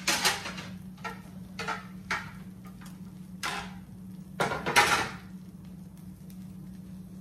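Kitchen things being handled: about six short knocks and scrapes, the longest and loudest about four and a half seconds in, over a steady low hum.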